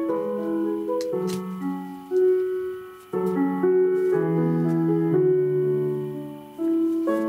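Instrumental break in a song: a keyboard plays held chords, a new chord struck every second or so, with no singing. It is heard played back through computer speakers.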